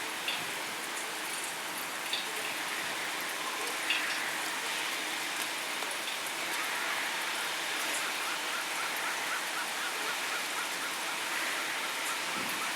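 Heavy rain falling steadily, with a few louder drips now and then.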